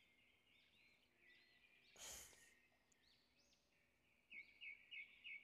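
Faint background birdsong: small birds chirping, with a quick run of repeated chirps starting about four seconds in. A brief soft hiss comes about two seconds in.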